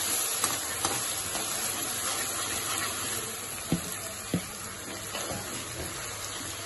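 A gravy of onions and green peppers in soy, chilli and tomato sauces with water sizzling and bubbling in a wok, a steady hiss that slowly fades. A metal spatula knocks against the pan a few times, most sharply twice, about halfway through.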